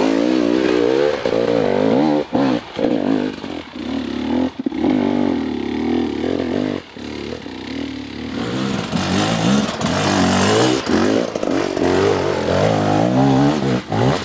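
Dirt bike engines revving hard under load on steep climbs, the pitch rising and falling constantly with the throttle, with several brief cut-offs as the throttle is chopped.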